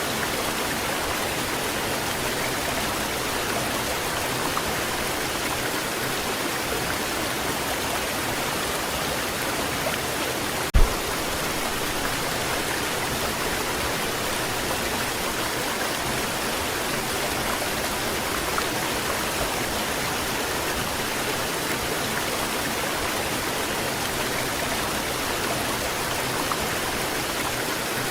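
Waterfall: water pouring and splashing in a steady, even rush, with a single brief low thump about eleven seconds in.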